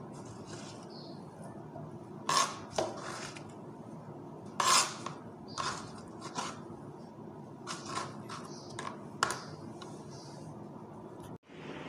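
Kitchen knife chopping vegetables on a plastic cutting board: irregular sharp knocks of the blade on the board, the loudest about two and five seconds in, over a steady low background noise. Near the end the sound cuts off abruptly and a steady hiss follows.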